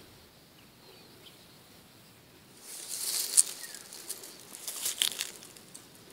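Close rustling and crinkling that swells twice, about three seconds in and again near five seconds, then dies away.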